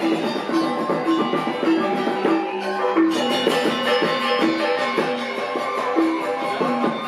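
Balinese gamelan ensemble playing an instrumental piece: bronze metallophones ringing out repeated notes over two-headed kendang drums and a bamboo suling flute.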